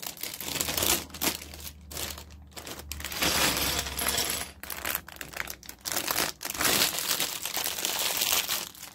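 Clear plastic Lego parts bag crinkling as it is opened and emptied, with the small plastic bricks clattering out onto a hard surface.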